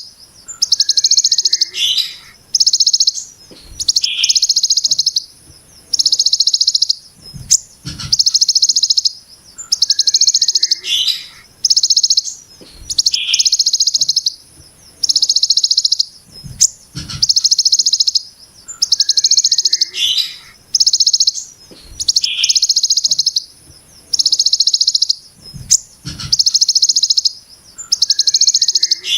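A songbird repeating the harsh, rapid-pulsed 'brem' buzz of the ciblek gunung over and over. Each high buzz lasts under a second and comes about every second and a half. Short, lower chirps fall between some of the buzzes.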